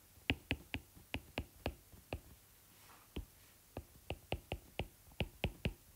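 Stylus tip tapping on a tablet's glass screen while handwriting: a quick, irregular run of light sharp taps, with a short pause in the middle.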